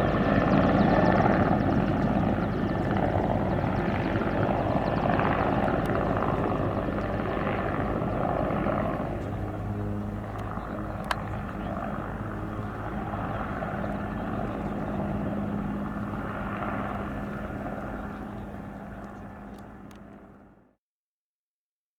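Military helicopter's rotor and turbine engines passing by, getting slowly quieter, then fading out to silence near the end.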